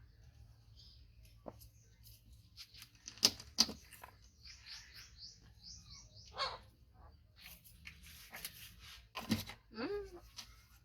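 Two sharp knocks, then a run of short high chirps, about four a second, from a small animal or bird. More knocks and scuffs follow, with a brief sliding squeal near the end.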